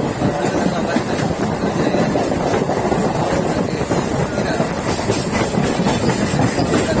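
Suburban local train running along the track, heard from aboard: a steady rumble with continuous rattle and clatter of the wheels and coach, and a faint high hiss above it.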